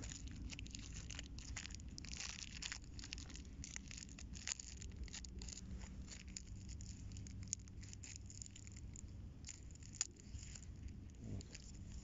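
Faint, irregular crackling and clicking of a balance lure's packaging being handled and opened, over a low steady rumble.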